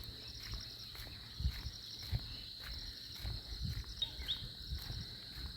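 A steady, high-pitched insect chorus with a pulsing trill, over irregular low rumbles and thumps. There are two brief chirps about four seconds in.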